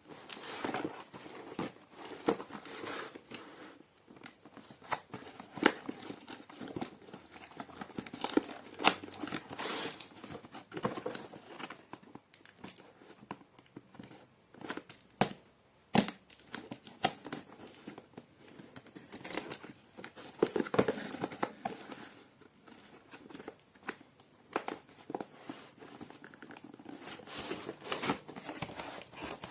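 Irregular rustling and crinkling with scattered sharp clicks and knocks, as of objects being handled; no motor is running.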